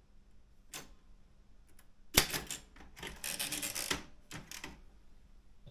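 Daro Optima M16 manual typewriter mechanism. There is a single click, then a loud sharp clack about two seconds in, then a rasping run of about a second, then a few light clicks.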